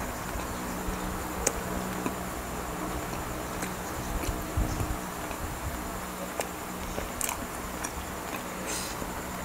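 Close-miked eating sounds: roast chicken pulled apart by hand, dipped in sauce and chewed, with scattered sharp wet clicks and smacks over a steady low hum.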